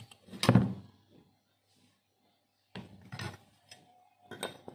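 Metal motor housing with its wound stator being handled on a workbench. There is a loud knock and scrape about half a second in, then softer knocks and scrapes around three seconds in and again near the end.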